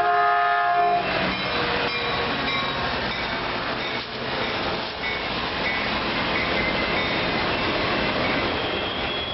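Caltrain commuter train's horn sounding a chord that cuts off about a second in, then the train running past with a steady rumble of wheels and rails.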